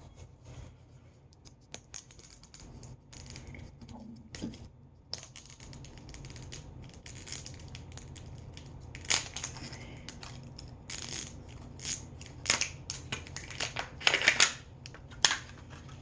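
Plastic packaging of a miniverse toy ball being handled and opened: irregular crinkles, clicks and taps, sparse at first and growing louder and busier over the last seven seconds.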